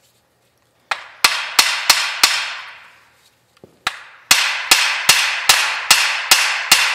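Hammer blows ringing on the steel steering spindle and kingpin of a 1930 Model A Ford front axle, knocking the spindle loose. Five quick strikes begin about a second in, then a short pause, then a steady run of about two and a half blows a second, each blow ringing out.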